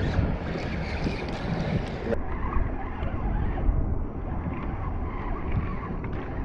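Wind noise on the microphone over choppy water lapping around a kayak. About two seconds in, the sound abruptly turns duller.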